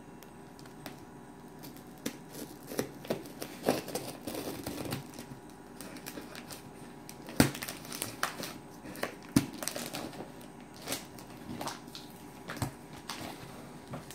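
Clear plastic wrap and packing tape crinkling and tearing as a cardboard shipping box is unwrapped by hand, in irregular crackles with a few sharper clicks, the loudest about seven and nine seconds in.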